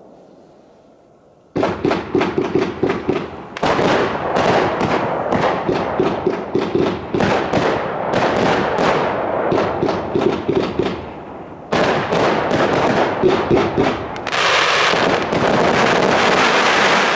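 Startrade Feuerzauber XL compound firework battery firing: rapid volleys of shots and bursts begin about a second and a half in, with a brief lull near twelve seconds. Near the end it turns into a dense, continuous crackling that cuts off suddenly.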